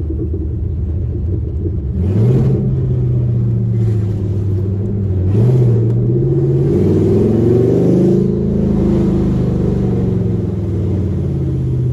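Loud exhaust of a 5th-gen Camaro SS 6.2-litre V8 with long-tube headers, driving. It blips up sharply about two seconds in and again near the middle, then pulls steadily higher for about two seconds before dropping back and droning steadily at cruise.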